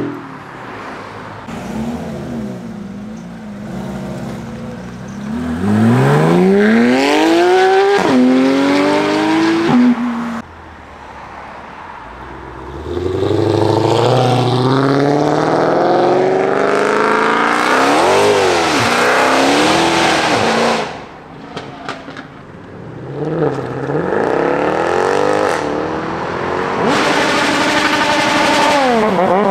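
Cars accelerating hard one after another, engine pitch climbing and dropping back at each gear change. There are three loud runs: about six seconds in, about thirteen seconds in, and near the end, with quieter engine sound between them.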